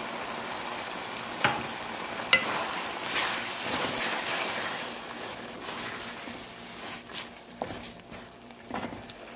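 Chicken with freshly added yogurt sizzling in hot oil in a karahi as a wooden spoon stirs it, with a few sharp knocks of the spoon against the pan. The sizzle swells in the middle and eases off near the end.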